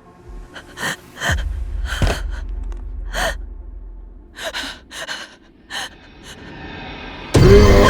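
A woman gasping and panting in fear, about nine short, irregular gasps with a low rumble underneath. Near the end a sudden loud burst of music cuts in.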